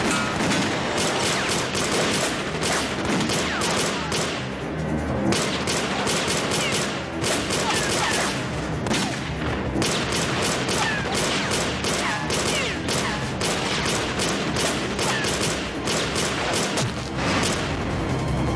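Heavy gunfire from assault rifles and pistols in a film firefight: many shots in quick succession, close together and overlapping, with background music underneath.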